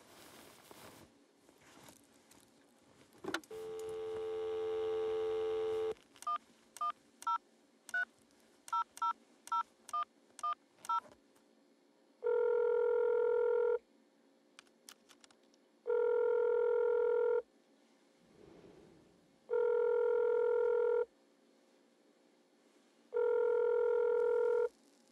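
Corded landline telephone: the handset clicks as it is picked up and a dial tone sounds. It is cut off by about ten quick touch-tone digits being dialed. Then the ringback tone sounds four times at even spacing as the line rings at the other end.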